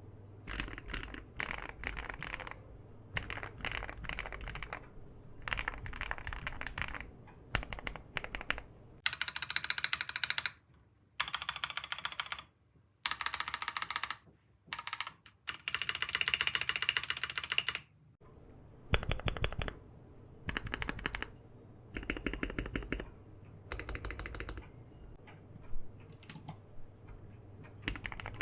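Typing sound test on an Akko Mod007 aluminium-case mechanical keyboard fitted with lubed Akko CS Rose Red linear switches and PBT double-shot ASA-profile keycaps: rapid keystrokes in bursts of a second or two with brief pauses between.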